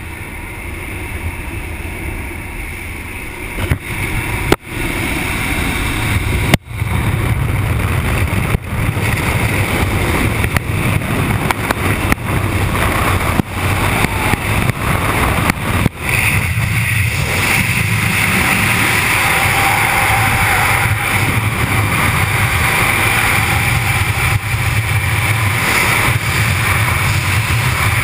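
Jump plane's engine and propeller noise with wind through the open door, growing louder over the first several seconds with a few brief dropouts. About two-thirds of the way through it gives way to the steady rush of freefall wind on the microphone.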